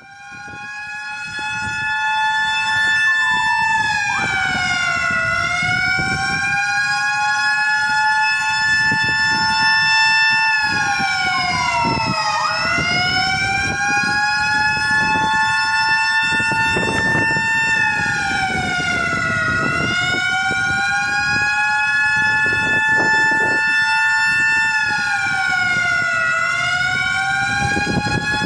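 Several sirens blaring together: sounding the moment of the Independence Day proclamation. The sound swells up in the first couple of seconds, then some tones hold steady while others slowly dip and rise again about every seven seconds.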